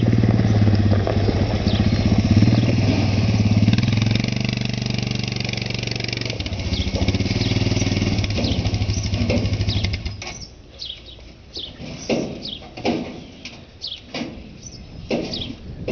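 ATV engine running steadily as the quad is ridden up into a pickup bed, then shut off abruptly about ten seconds in. After that, short high chirps of birds and a few knocks.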